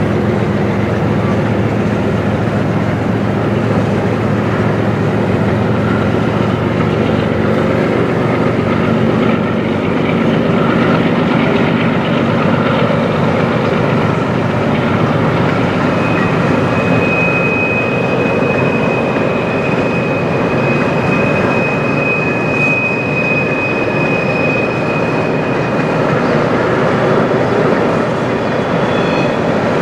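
Coal hopper cars of a freight train rolling past close by, a loud steady rumble and rattle of steel wheels on the rails. A single high, steady wheel squeal sets in about halfway through and stops a few seconds before the end.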